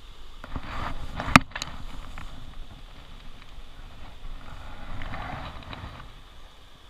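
Jacket sleeves rustling and handling noise close to the microphone as hands reach down and lift something from the water, with one sharp knock about a second and a half in and a second stretch of rustling around five seconds in.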